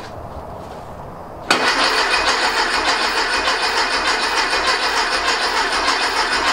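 Starter cranking a freshly rebuilt 1835cc air-cooled VW flat-four without it firing, turning it over to build oil pressure. It kicks in suddenly about a second and a half in and churns steadily with an even rhythm.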